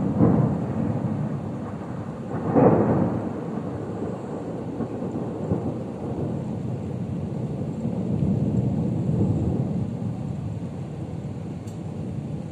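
Thunder: a sharp clap right at the start and a second clap about two and a half seconds in, followed by a long rolling rumble that slowly dies away.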